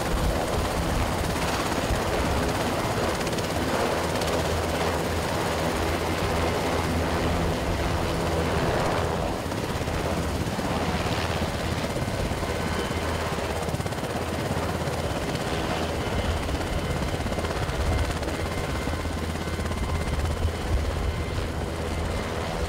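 Sikorsky CH-148 Cyclone helicopter running on the ground with its rotors turning: a steady low rotor throb over the noise of its twin turboshaft engines.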